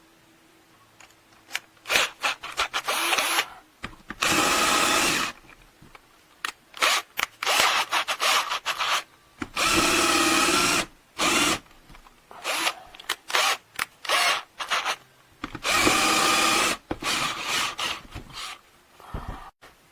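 KELNOW 21V cordless drill/driver motor running in repeated trigger bursts: many short blips and three longer runs of about a second and a half, each a steady whine.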